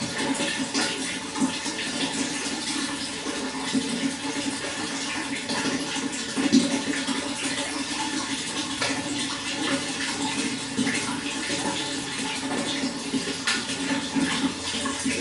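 Running water, flowing and splashing steadily with many small splashes, one a little louder about six and a half seconds in.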